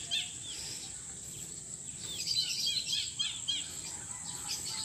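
Steady high-pitched insect drone, with short runs of quick bird chirps at the start and again about two to three seconds in.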